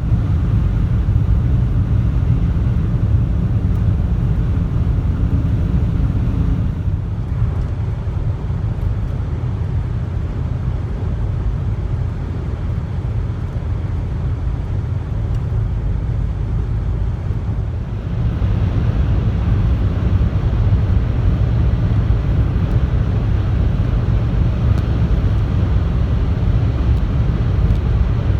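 Steady road and engine noise inside a moving car's cabin at highway speed. The noise gets a little louder about eighteen seconds in.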